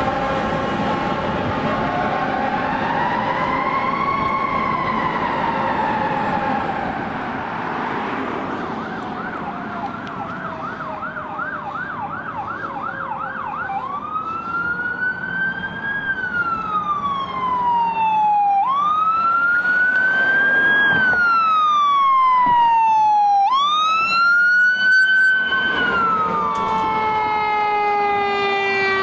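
Fire truck siren going through its tones: a steady horn blast at the start, a slow wail rising and falling, a fast yelp of about four cycles a second, then three wind-ups that climb quickly and fall away slowly.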